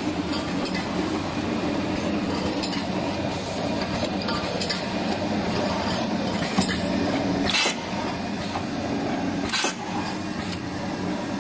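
FLV30-2 automatic can seaming machine running: a steady motor hum with light clinking of metal cans in the conveyor and star wheels. Two short, loud bursts of noise come about seven and a half and nine and a half seconds in.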